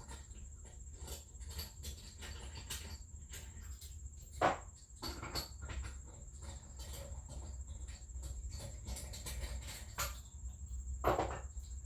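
Irregular clicks and knocks of lug nuts and hand tools as a car wheel is taken off, with a couple of louder knocks about four and a half seconds in and near the end. A steady high-pitched whine runs behind them throughout.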